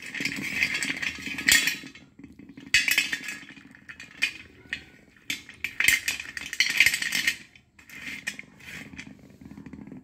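Slate pencils clattering against each other and the plate as a handful is stirred, lifted and let fall. They come in about four rattling bursts of a second or so each, with single clicks in between.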